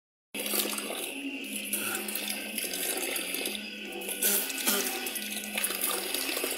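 Kitchen tap running into a sink, a steady rush of water starting a moment in, with a few short knocks around the middle.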